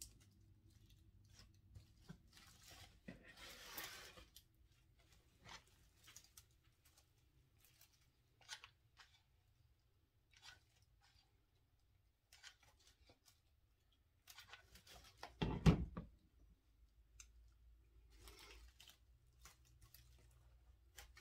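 Scattered crackles, rustles and clicks of dry grapevine wreath forms being handled and glued, with one heavier thump about fifteen seconds in.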